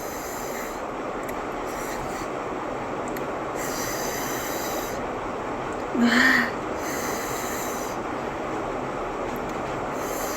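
A steady hiss of background noise, with one short vocal sound about six seconds in from a woman reeling from the heat of a very hot green chilli.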